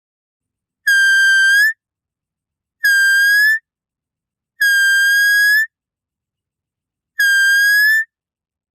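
Four high, whistle-like doe bleats, each just under a second long, each holding one steady pitch that turns slightly upward at the end. They come at uneven gaps, about two seconds apart, with the third a little longer than the others.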